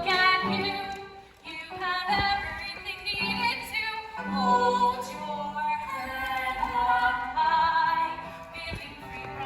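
A female voice singing a musical-theatre song over a backing accompaniment of held notes, with a short break in the singing about a second and a half in.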